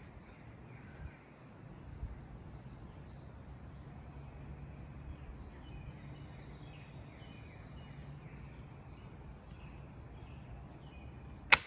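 Outdoor ambience with birds chirping throughout, then a single sharp shot from a pellet rifle near the end.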